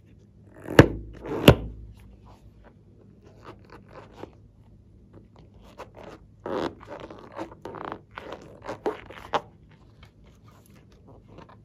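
A filled rubber balloon handled in the hands: two sharp clicks about a second in, then a run of short rubbery scrapes and rubs of fingers against the balloon skin in the second half.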